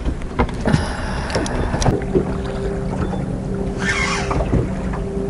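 A boat's motor idles with a steady hum. A few sharp clicks come in the first two seconds, and a brief hiss about four seconds in.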